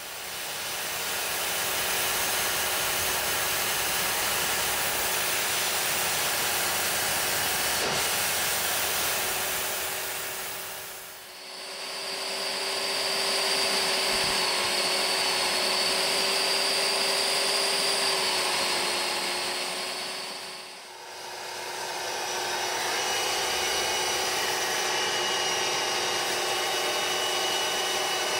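Rug Doctor carpet-cleaning machine's vacuum motor running steadily, sucking through the hand upholstery tool, with a steady whine. The sound fades out and back in twice, about 11 and 21 seconds in, and a high whistle sits over it in the middle stretch.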